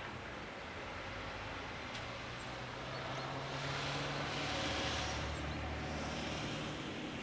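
Street traffic: a steady low engine hum, with a vehicle passing that swells and fades about four to six seconds in.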